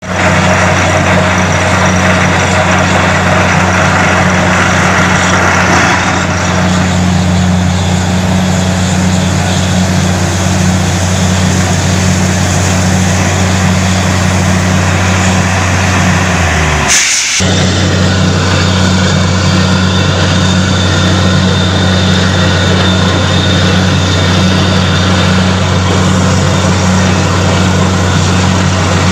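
Truck-mounted borewell drilling rig running while drilling: a loud, steady engine drone under a hiss. About halfway through the drone briefly sags and cuts out for a moment under a short burst of hiss, then carries on as before.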